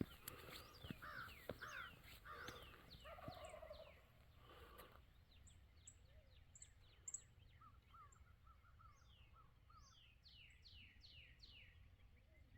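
Faint wild turkey gobbling, a rapid rattling call about three seconds in, among other birds' calls. Repeated descending whistled notes, high short chirps and a brief trill continue after the gobble.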